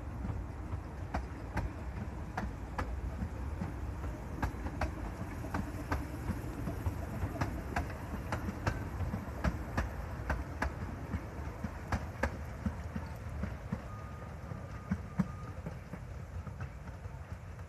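Narrow-gauge passenger carriages rolling past, their wheels clicking over the rail joints about once or twice a second over a low rumble that eases slightly near the end as the train draws away.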